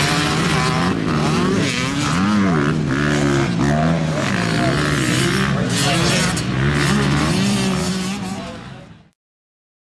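Motocross dirt bikes racing, their engines revving up and down in quick, repeated swells through the corners. The sound fades out about nine seconds in.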